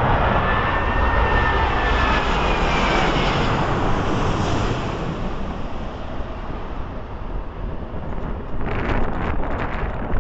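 Airbus A380's Rolls-Royce Trent 900 jet engines during the landing, a high whine gliding in pitch over a loud rushing noise that swells about three to four seconds in and then eases off. Near the end, wind buffets the microphone.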